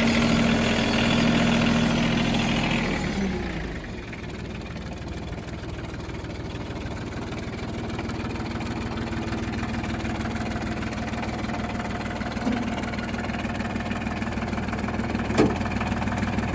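Ford 1720 compact tractor's three-cylinder diesel engine running at raised throttle, then dropping back to a steady idle about three seconds in. A single sharp click comes near the end, and the engine sound fades away just after.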